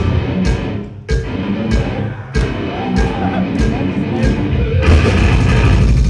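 Deathcore band playing live: sharp accented guitar-and-drum hits about every 0.6 s, then the full band comes in continuously about five seconds in.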